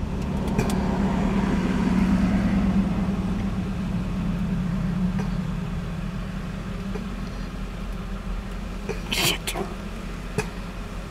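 A motor vehicle's engine running with a steady low hum, swelling louder for a few seconds about a second in and then settling. A brief sharp noise about nine seconds in.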